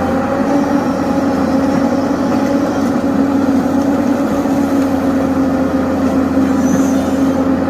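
Heavy diesel engine of the machinery at a sand-loading site running steadily at a constant speed, an even, unchanging drone.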